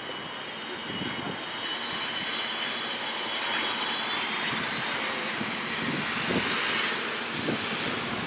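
Delta Boeing 757-300 jet airliner on final approach, passing low, its twin turbofan engines running with a steady high whine over a wide rushing noise. The whine rises in pitch about halfway through, and the sound grows louder toward the end.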